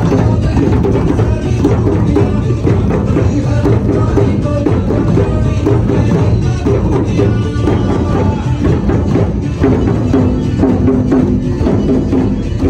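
An ensemble of djembes and other hand drums played together with bare hands: a loud, dense, unbroken beat of many overlapping strikes.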